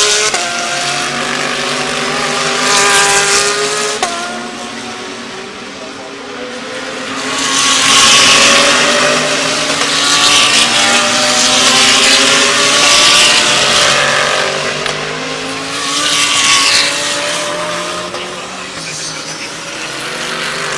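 GT3 race cars at racing speed passing in several waves, engines revving with quick gear-change drops in pitch, loudest about eight to thirteen seconds in.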